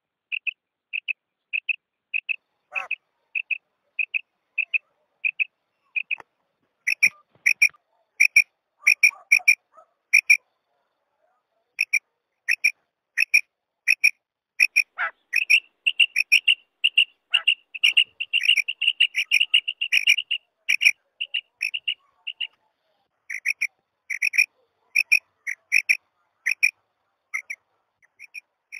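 Female common quail giving the short, clipped 'kirak' call used by hunters to lure male quail into calling. Notes come about twice a second at first, then from about seven seconds in more calls overlap and crowd together, thickest around the middle.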